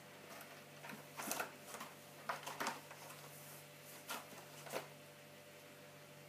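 A cat's claws and body scraping and rustling on a corrugated cardboard scratching board, in short scratchy bursts from about a second in until near the end, over a faint steady hum.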